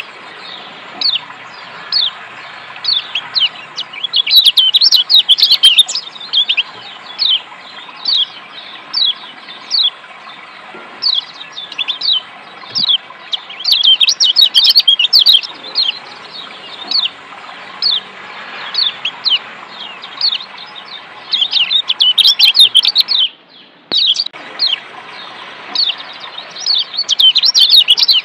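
Kecial kuning (Lombok yellow white-eye, a Zosterops) calling: short sharp downward-sliding 'ciak' chirps about once a second, breaking now and then into fast chattering runs. Under them runs a steady rush of running water, which cuts out briefly near the end.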